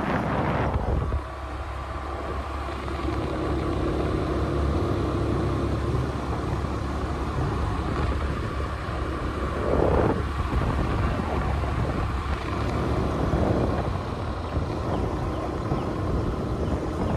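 A scooter riding along a road: a steady low rumble of engine and road noise with wind on the microphone, and a brief louder swell about ten seconds in.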